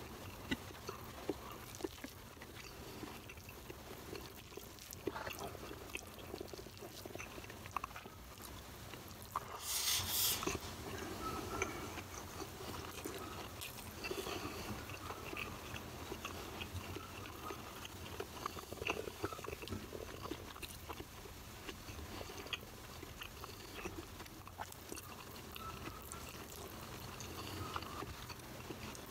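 Close-up chewing of a mouthful of rice and vegetables eaten by hand, with wet mouth and lip clicks throughout. About ten seconds in there is a brief loud hiss.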